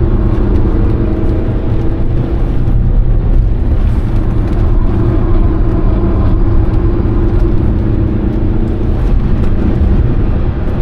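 Alfa Romeo 156 1.9 JTD's four-cylinder turbodiesel engine running under load as the car is driven at speed, heard from inside the cabin over a constant low rumble. The engine note holds fairly steady, with small rises and falls in pitch.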